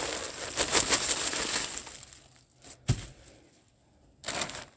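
Dry leaves crackling and a plastic bag crinkling as the leaves are handled, busiest in the first two seconds. A single dull thump comes about three seconds in, and a short rustle follows a little after four seconds.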